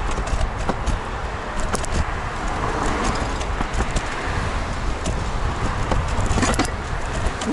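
Electric rental scooter being ridden along a road: a steady low rumble of wind and road vibration, with scattered rattling clicks.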